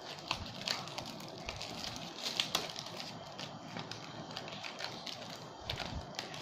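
Thin plastic bag being untied by hand at its knotted neck: irregular crinkling and rustling of the plastic with small clicks throughout.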